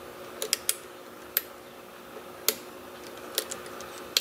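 Scattered, irregular sharp clicks of a lock pick and tension wrench working the pins of a Defiant (Kwikset-type) pin-tumbler lock, one of them pin 2 setting as the lock drops into a very deep false set.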